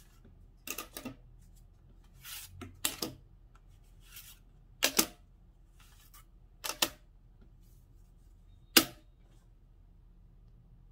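Thin laser-cut plywood puzzle sheets handled and laid down on a table: about half a dozen short clacks and rustles of wood against wood and tabletop, the sharpest and loudest near the end.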